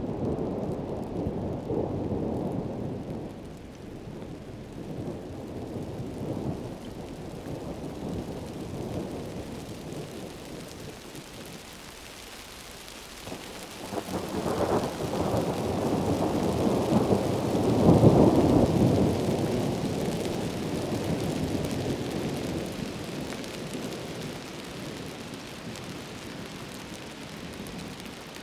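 Heavy rain falling steadily with rolling thunder. The rumbles swell and fade slowly, with the loudest one building about fourteen seconds in and peaking a few seconds later.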